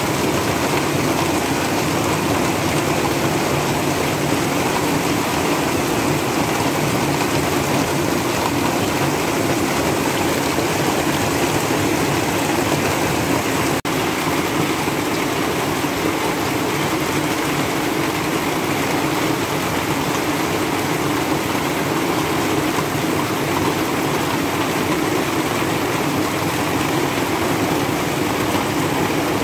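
Heavy rain falling steadily on a house roof and yard, with water pouring off the roof edge; a momentary dropout about fourteen seconds in.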